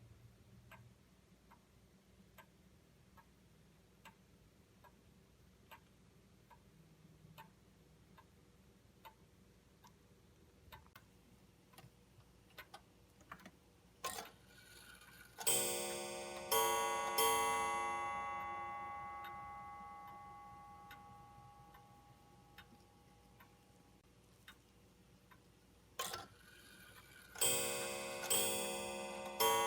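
Austrian three-weight Vienna regulator wall clock ticking steadily, about once a second. About halfway through, a click as the striking train releases is followed by a few ringing gong strikes that die away slowly. Another click near the end is followed by a second run of strikes.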